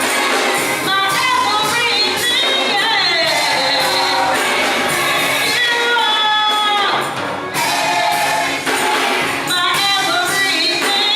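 Gospel choir singing with band accompaniment and a tambourine shaking along, loud and steady throughout.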